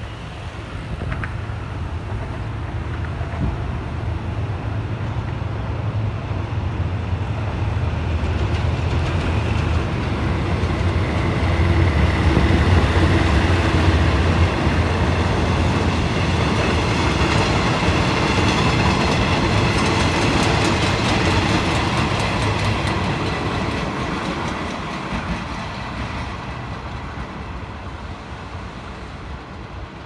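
GEK-class diesel-electric locomotive passing: its engine rumble builds to a peak about halfway through. Then the coaches' wheels click over the rail joints as the passenger train goes by, and the sound fades as it moves away.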